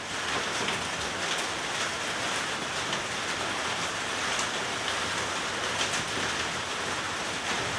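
Steady, even hiss with a few faint ticks.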